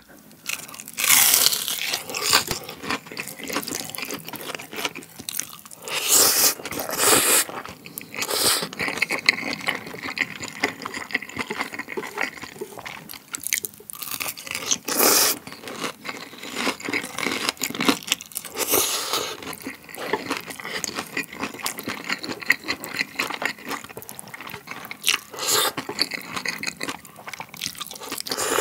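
Close-miked eating: a bite into crispy cheese pork cutlet (chijeu donkkaseu), then wet chewing broken by several long loud slurps of chewy spicy cold noodles (jjolmyeon).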